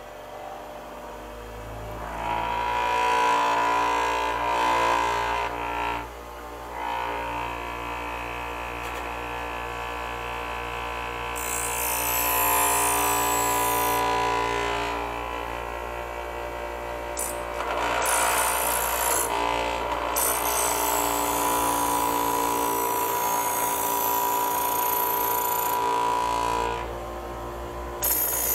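Bench grinder running with a steady whine while a steel knife blade is held against the wheel, a harsh grinding hiss swelling and fading over several passes.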